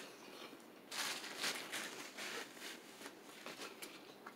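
Mouth chewing a bite of crispy fried chicken: soft, irregular crunches, busiest in the first half and thinning out after.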